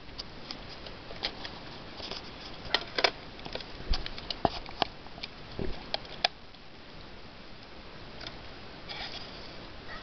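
Small 1/18-scale RC 4x4 truck driving on concrete: a faint steady whir, with scattered clicks and ticks.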